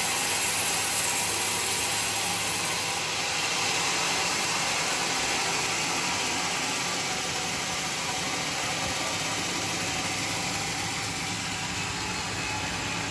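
Portable band sawmill running with a steady mechanical noise and low hum; a high hiss drops away about three seconds in, and the machine runs on.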